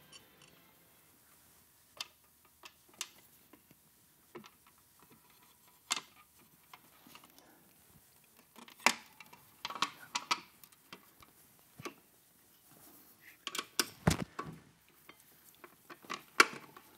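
Scattered sharp clicks and light metal clinks of small fasteners and hand tools as a fender is fitted to a motorcycle's front fork. The clicks come singly at first, then bunch together around the middle and again near the end.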